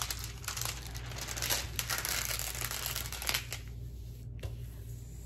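Crinkling and rustling of the plastic cover film on a diamond painting canvas as it is handled and smoothed flat. The crinkling dies down about three and a half seconds in.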